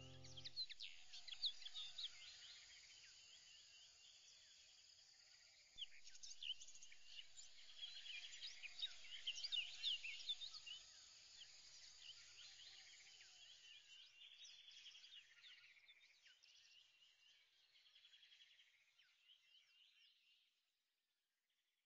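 Faint chorus of birds chirping in many short, quick high calls over a light hiss, dying away near the end.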